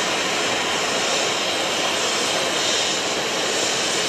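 Steady, loud rushing noise, an even hiss across the whole range with a faint low hum under it, unchanging in level.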